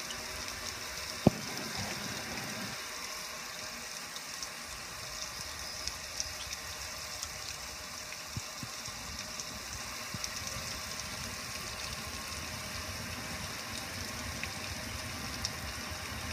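Water pouring and splashing steadily over a gas grill, streaming off the lid and control panel, with small scattered patters and one sharp knock about a second in.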